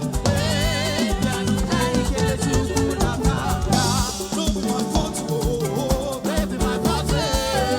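Upbeat live gospel band music with drums, percussion and a wavering melody line over a steady beat.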